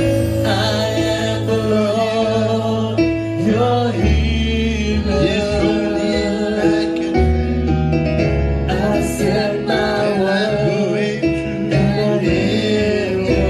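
Gospel worship music: singing over a steady instrumental accompaniment with held bass notes.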